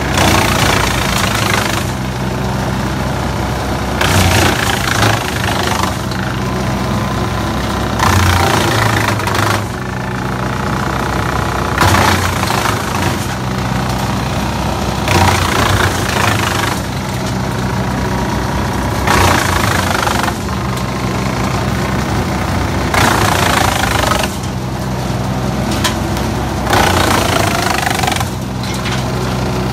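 Linddana TP 150 wood chipper's Kohler 1006 diesel engine running steadily under load. It chips a branch in bursts of about a second and a half, roughly every four seconds, as the repaired no-stress control starts and stops the feed.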